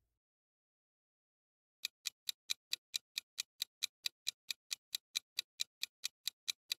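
Clock-ticking sound effect of a quiz countdown timer: sharp, evenly spaced ticks, about four to five a second, starting about two seconds in after a silence.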